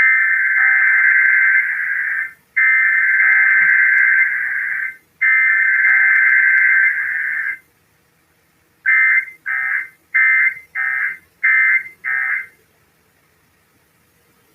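Emergency Alert System SAME digital header, a harsh warbling data tone sent three times in bursts of about two seconds each. After a short gap come six quick bursts of the same data, the end-of-message code. There is no attention tone, as in a weekly test of the system.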